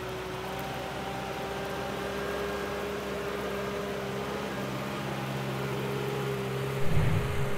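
Tractor engine running steadily under a steady mechanical whine. A short, louder low knock comes about seven seconds in.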